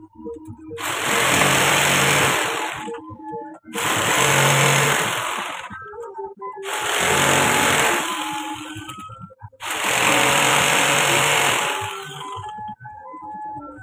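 Corded handheld power tool cutting along the edge of a wooden door, run in four passes of about two seconds each with short pauses between. Background music plays underneath and is heard in the pauses.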